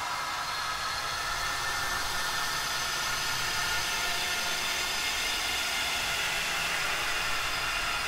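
Ghostly wailing Halloween sound effect: a steady hissing drone with faint held tones in it.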